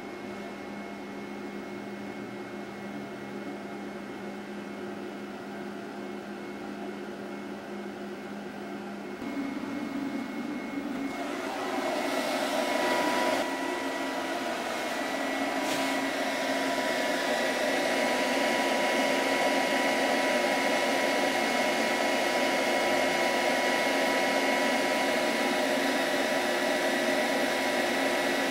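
Small PC cooling fans running with a steady whir and a faint whine. The sound grows louder about nine seconds in and again about eleven to twelve seconds in, then holds steady.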